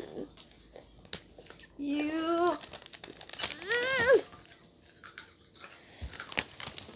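A child singing briefly twice, the second phrase rising and the loudest, about four seconds in. Between them come soft crinkling of a plastic snack-chip bag and crunching of chips being eaten.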